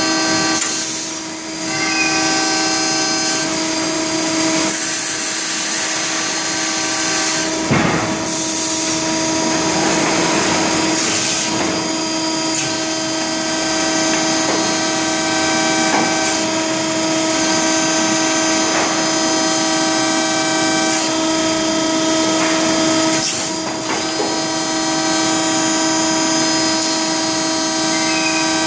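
Hydraulic press power unit running: a steady pump whine with overtones, broken by several louder rushes of hiss, while the system pressure on the gauges climbs.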